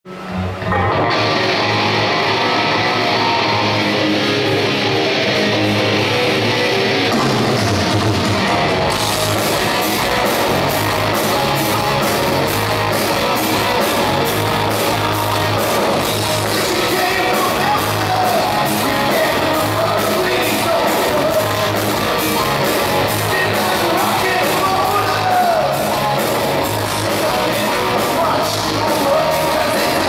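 Live progressive metal band playing: distorted electric guitar, bass and drums with a man singing over them. The sound grows brighter about nine seconds in.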